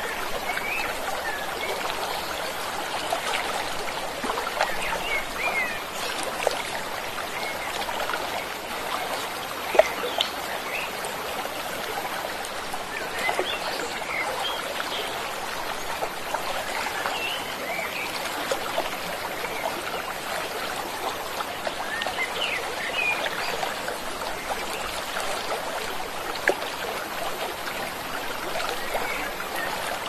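Stream flowing steadily with a gurgling rush of water, with short bird chirps scattered over it and a single louder splash about ten seconds in.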